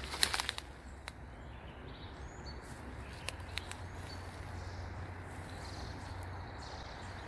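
Dry leaves crackling underfoot just at the start, then a few faint twig-like clicks and scattered faint bird chirps over a steady low rumble.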